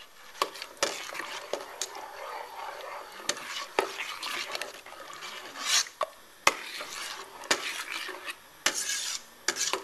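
A utensil stirring puréed butternut squash soup in a pan, with irregular clinks and scrapes against the pan.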